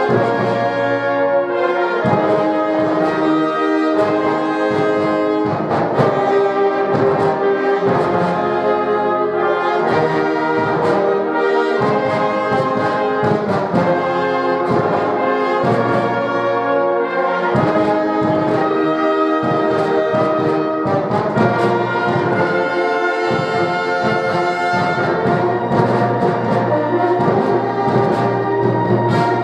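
Music led by brass instruments, held chords changing every second or so over a steady beat.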